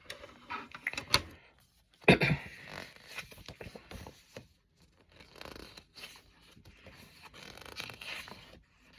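Hands handling and opening packaging: irregular scraping, rustling and tearing, with a few sharp clicks and a louder knock about two seconds in.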